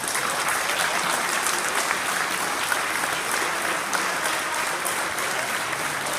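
Spectators clapping and cheering, a dense, steady din of applause.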